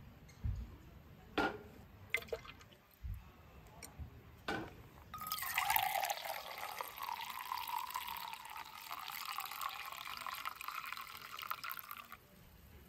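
Café au lait poured from a glass coffee server into a stainless steel mug: a steady pour of about seven seconds whose pitch rises slightly as the mug fills, then stops. A few light knocks of handling come before the pour.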